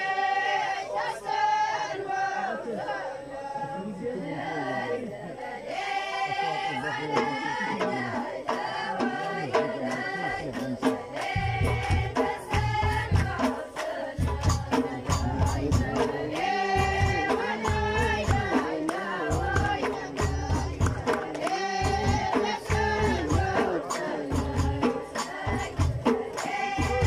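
Ahwach, Amazigh collective folk music: a group of voices singing together in chorus. Deep, regular drum beats come in about eleven seconds in and keep time under the singing.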